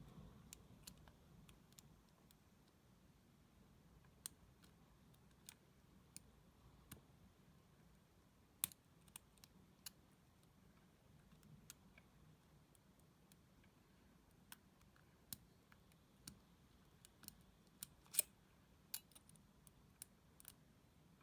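Faint, irregular metallic clicks of a lock pick and tension tool working the pins of a dual-row pin-tumbler Ifam Hercules padlock while it is being picked, a sharper click now and then, the loudest about 18 seconds in.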